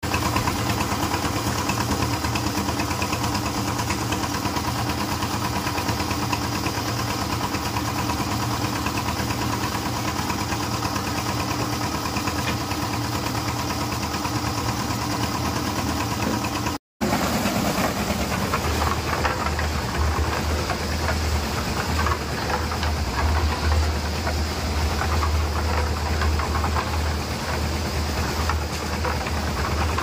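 Concrete mixer's engine running steadily with a chugging, knocking note as the drum turns. After a brief cut about halfway through, the low rumble grows heavier, with the drum turning wet concrete inside.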